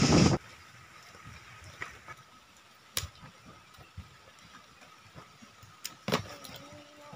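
Loud rushing wind-and-rain noise around swaying coconut palms, cut off abruptly. Then quiet outdoor ambience with scattered light taps and knocks as coconut husks are set down on wet mud, the loudest knock about six seconds in.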